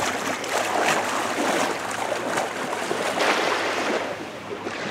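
Shallow seawater splashing and swishing around a wading person's legs, in irregular surges.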